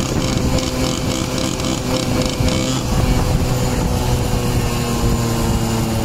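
Small motorcycle engine running as it is ridden, with wind rushing over the microphone; the engine note sinks a little about four seconds in as the throttle eases.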